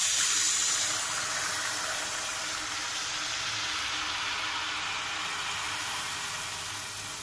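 Taal malpua batter deep-frying in hot oil in a kadai: a steady sizzling hiss that slowly eases.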